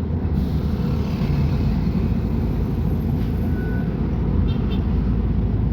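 Diesel engine of a Mercedes-Benz O500UA articulated bus (Caio Millenium BRT II body) running steadily, a deep even rumble.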